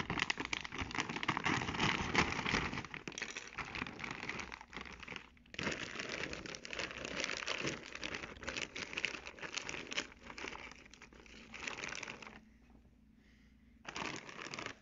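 Clear plastic bag crinkling and rustling as hands open it and reach in among frozen battered fish bites, in two long stretches of handling, then a short pause before a brief final rustle.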